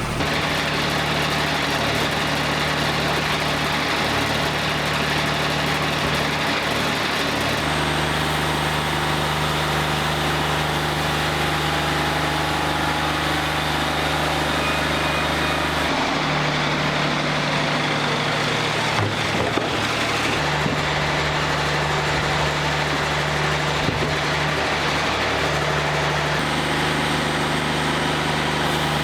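Wood-Mizer LT40 Wide diesel portable sawmill running steadily, its engine note shifting a few times, about a quarter, half and two-thirds of the way through.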